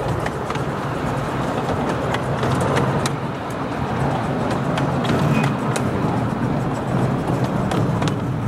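Miniature railway passenger coaches rolling past close by: a steady rumble of wheels on the rails with scattered sharp clicks as the wheels cross rail joints.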